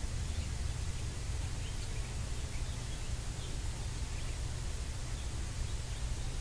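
Ducklings peeping faintly, a scattering of short high peeps, over a steady low rumble and hiss.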